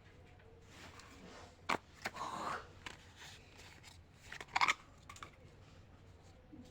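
Candy wrappers being handled and torn open: a few short crinkles and sharp clicks, the loudest a little after halfway.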